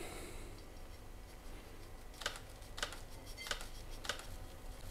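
Camera shutter clicking four times, about two-thirds of a second apart, as a burst of flash shots is fired.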